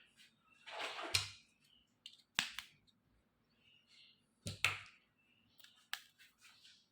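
Small plastic toy kitchen pieces being handled: a soft rustle about a second in, then sharp clicks and taps about two and a half seconds in, twice around four and a half seconds, and once near six seconds.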